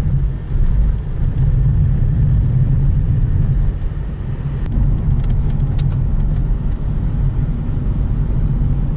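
Car driving, heard from inside the cabin: a steady low rumble of engine and road noise, with a few faint ticks about five seconds in.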